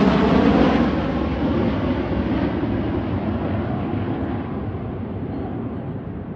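Jet engine roar from a formation of Blue Angels F/A-18 Super Hornets passing over and moving away. The roar is loudest at the start and fades steadily, its hiss growing duller as the jets recede.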